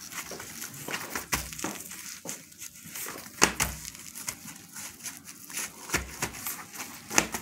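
Gloved hands pressing sushi rice flat through a bamboo rolling mat on a plastic cutting board: crinkly rustling of the gloves and bamboo slats, with about four sharp knocks.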